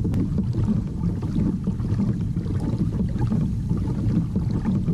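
Hobie Outback pedal-drive kayak under way, giving a steady, choppy rushing noise as it moves across the water.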